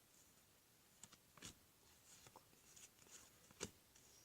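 Near silence with a few faint taps and rustles of trading cards being handled, the clearest near the end.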